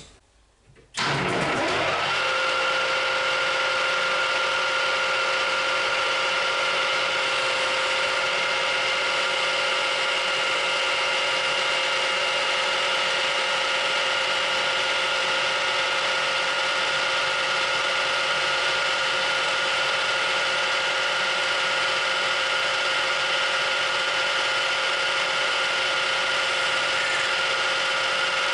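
Metal lathe starting up about a second in, spinning up to 1200 rpm with a short rising whine, then running steadily with a constant high whine from its drive.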